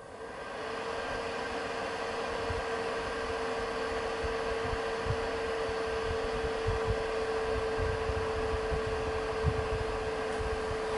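Dyson AM06 bladeless fan starting up and then running steadily on airflow setting 4 (low): a rush of air with a steady motor whine, building over about the first second.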